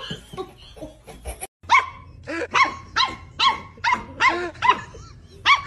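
A black-and-tan puppy barking in a quick run of about nine high-pitched barks, roughly two a second, starting just under two seconds in. It is play-barking at a larger dog.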